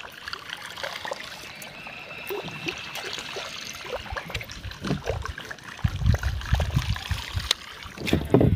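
Water trickling and lapping against the hull of a small boat moving slowly along the river, with scattered small clicks. About two-thirds of the way through, low bumps and knocks come in, loudest near the end.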